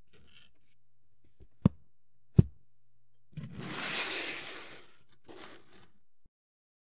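Objects being handled on a work surface: two sharp knocks a little under a second apart, then a second or two of rustling and scraping. The sound cuts off abruptly shortly before the end.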